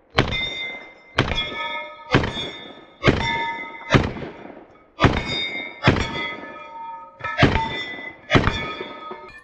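Nine gunshots about a second apart, a slightly longer pause before the last two. Each is followed by a short metallic ring, typical of steel targets being hit.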